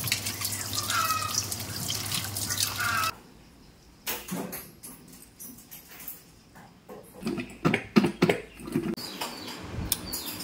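Water running steadily, with a short call repeating a few times over it, then stopping abruptly about three seconds in. Scattered knocks and clatters follow, loudest about eight seconds in.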